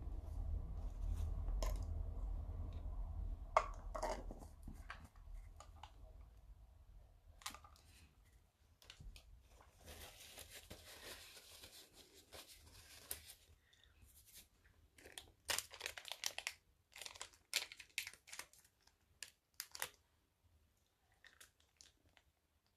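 Packaging crinkling and tearing, handled close to the microphone: scattered clicks and crackles, with a longer tearing rasp about ten seconds in. A low rumble fills the first few seconds.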